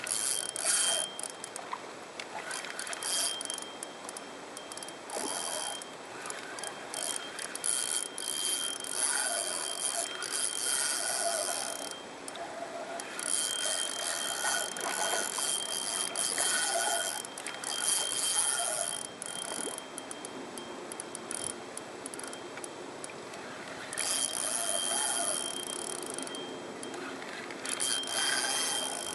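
Fishing reel being cranked, a whirring, ticking retrieve in several long bursts with short pauses between.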